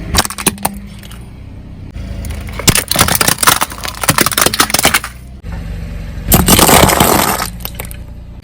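A car's engine running low and steady while its tyres crush objects, with bursts of crackling and cracking: a short run at the start, a long dense stretch of crunching from about two seconds in, and a louder noisy crush near the end.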